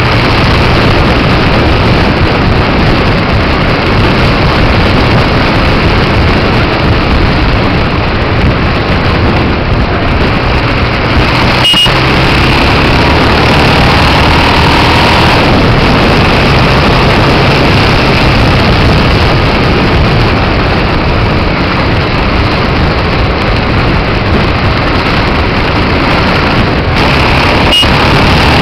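Aprilia Pegaso 650 Cube motorcycle's single-cylinder engine running at road speed under a steady, loud rush of noise, with its pitch shifting slightly. There are two brief clicks, about halfway through and near the end.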